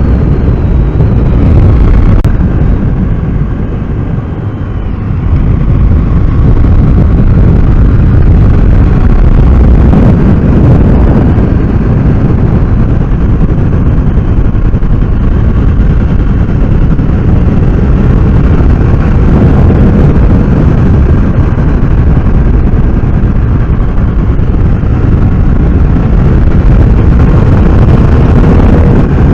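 Riding on a BMW F800R motorcycle at speed: wind rushing over the microphone mixed with the 798 cc parallel-twin engine running. The loudness dips briefly about four seconds in, then holds steady.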